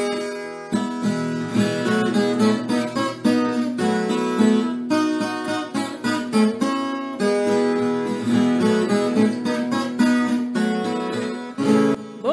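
Background music of acoustic guitar, plucked notes and strums.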